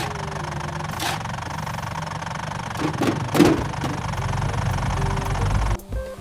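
A vehicle engine running steadily, with a few knocks midway, cutting off near the end.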